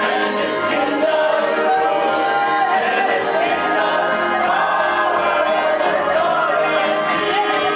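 A group of men singing a gospel worship song together into microphones, amplified through a PA loudspeaker, with a steady, full level.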